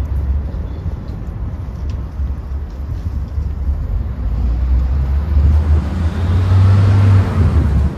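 Road traffic on a city street with a steady low rumble. A vehicle passing close swells to the loudest point about six to seven seconds in, then fades.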